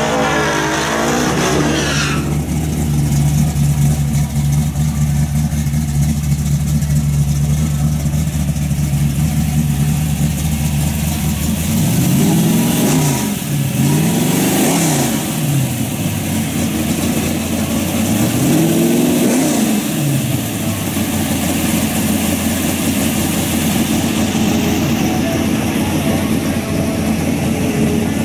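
Drag-racing V8 engines. A car's engine note falls away in the first two seconds, then an engine idles steadily. Around the middle, a V8's throttle is blipped three times, the revs rising and falling each time.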